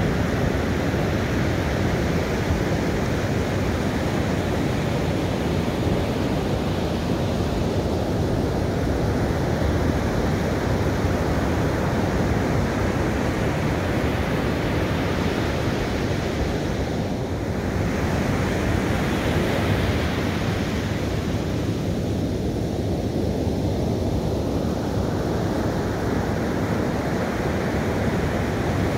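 Ocean surf breaking and washing up a sandy beach in a steady continuous rush, with wind buffeting the microphone.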